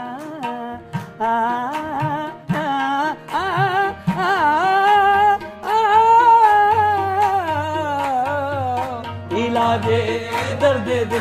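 Qawwali music: a wavering, heavily ornamented melody line over repeated sharp drum strokes, with a low held note coming in about halfway through.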